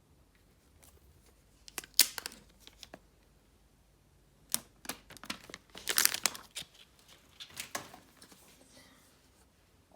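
Paper and plastic phone packaging crinkling and tearing in short bursts, once about two seconds in and again in a longer run from about four and a half to eight seconds, as the wrapping is handled and pulled off.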